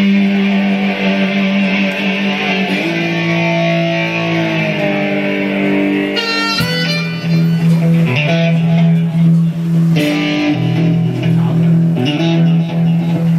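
Amplified lap-style slide guitar played solo: sustained chords and single notes that glide up and down in pitch, with a couple of sharp string clicks along the way.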